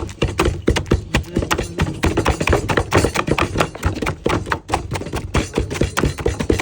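Rapid, irregular knocking and tapping of food being pounded and mashed into elephant vitamin balls, several knocks a second.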